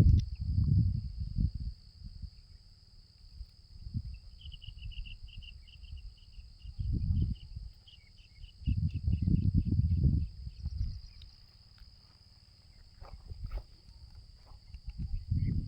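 Steady high-pitched insect drone, with a run of quick chirps about four seconds in and several loud low rumbles coming and going.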